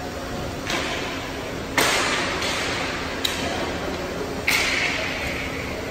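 Hockey play echoing around a rink: a string of sharp cracks and scrapes from sticks, puck, skates and boards, about five in a few seconds, each ringing on briefly. The loudest comes about two seconds in, and one a little past three seconds has a short metallic ping.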